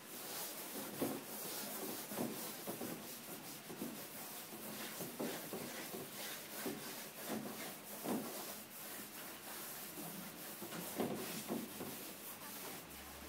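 Charcoal scratching and sweeping across paper on an easel, in a quick run of overlapping gesture strokes with no pause.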